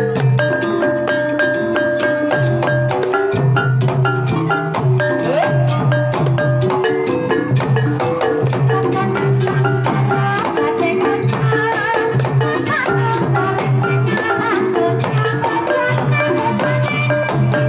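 Banyumasan tayub gending played by a gamelan ensemble: interlocking mallet-struck melody over a kendang hand-drum pattern. A sinden's wavering singing voice joins in about two-thirds of the way through.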